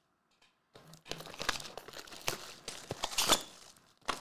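Plastic shrink-wrap crinkling and tearing as a sealed trading-card hobby box is unwrapped and opened, with many sharp crackles. It starts about a second in.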